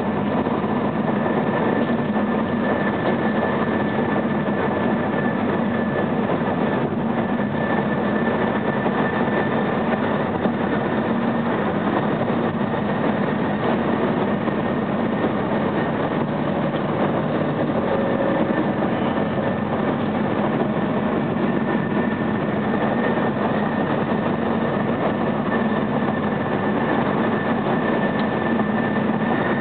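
Steady road and engine noise inside a moving car's cabin, with a faint high steady whine.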